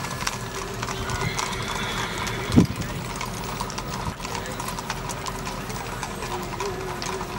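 Horses' hooves clip-clopping on a paved street as a line of riders passes, many irregular hoofbeats overlapping. A single low thump stands out about two and a half seconds in.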